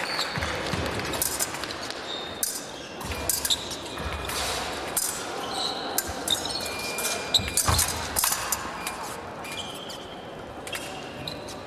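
Épée fencers' footwork on the piste during a bout: shoes thudding and squeaking in quick irregular steps, mixed with sharp knocks and brief high squeaks.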